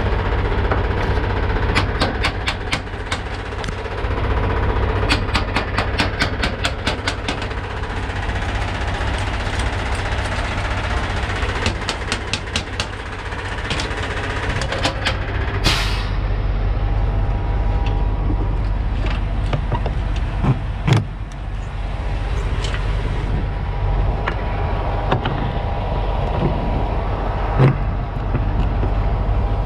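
Semi-truck tractor's diesel engine idling steadily, under runs of quick metallic clicks and knocks as air-line gladhand couplings and hoses are handled. There is one short, sharp burst of air hiss a little past halfway.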